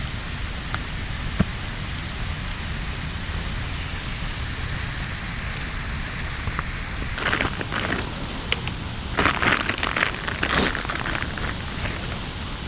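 Steady rushing hiss with a single click early on, then rustling and crinkling handling noise from about halfway through, in irregular bursts.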